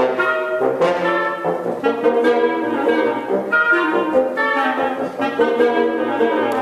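Woodwind quintet with flute, clarinet and French horn playing live, the whole ensemble sounding together in short, quickly changing chords.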